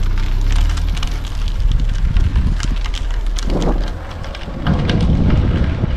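Wind buffeting the microphone: a loud low rumble with scattered crackles, dipping briefly a little past halfway.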